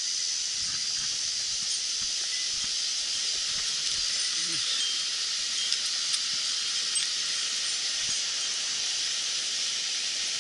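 Mountain stream water rushing over rocks: a steady, even hiss.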